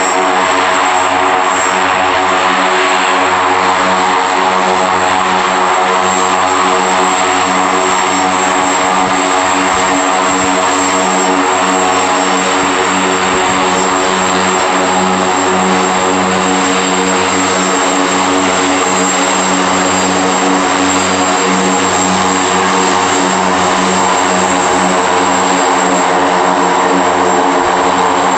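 FMA IA-58 Pucará's twin Turbomeca Astazou turboprops running as the aircraft taxis: a steady, loud propeller drone with a high, thin turbine whine above it.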